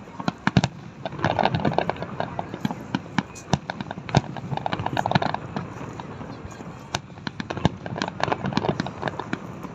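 Fireworks going off: a run of irregular sharp bangs and crackling pops, some in quick clusters.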